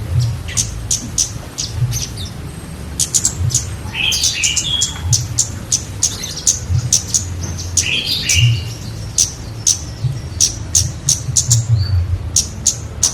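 Kemade songbird singing energetically: a quick run of sharp, high chirps, broken by fuller warbling phrases about four and eight seconds in.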